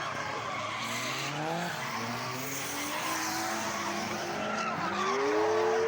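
Drift cars on track, engines revving hard with their pitch climbing through the gears while the tyres skid and squeal. Near the end one engine rises sharply and then holds a steady high note.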